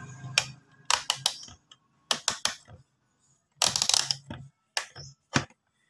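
Groups of sharp, short clicks and taps: a Sanwa analog multimeter's rotary range selector being clicked round its positions, with the meter and its probe leads being handled to set up a bias measurement.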